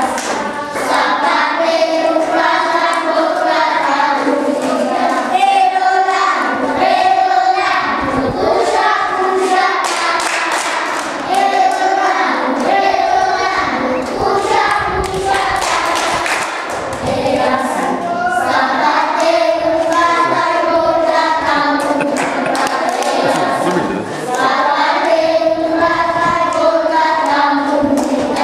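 A group of children singing together in chorus, a continuous song with changing notes, with occasional hand claps.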